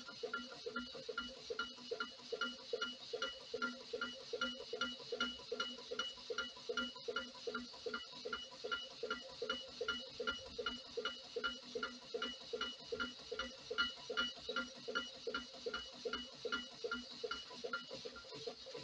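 Homemade wood-fired alpha Stirling engine running steadily, a short pitched pulse sounding with each stroke at about two and a half pulses a second. A faint steady high tone underneath stops shortly before the end.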